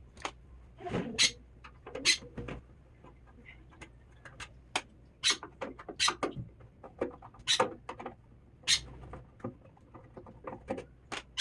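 Irregular sharp clicks and light knocks, about two a second, like small hard parts or tools being handled.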